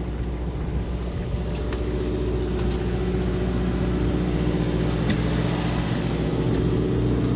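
Fishing boat's engine running steadily: an even low hum with a few faint clicks.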